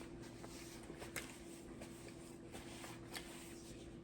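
Quiet room tone with a faint steady hum and a few soft clicks.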